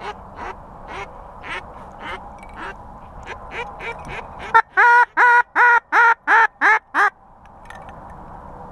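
Duck call sounding a mallard hen's quacks: a string of soft quacks about three a second, then about halfway through a run of seven loud quacks at the same pace.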